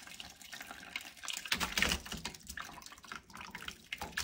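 Curdled soy milk, tofu curds and whey, poured from a metal pot into a cloth-lined container. The whey splashes and trickles through the cloth as the curds slide in, louder for a moment about halfway through.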